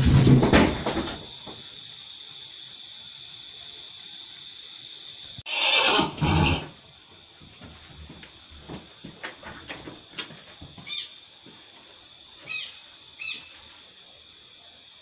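Crickets chirping steadily. In the first second, knocking and scraping from the pony stallion's hooves against the wooden stall boards; about six seconds in, the pony gives a short, loud squeal in two parts.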